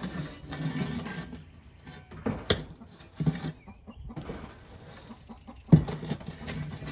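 Hens clucking, broken by several sharp knocks, the loudest a little before the end.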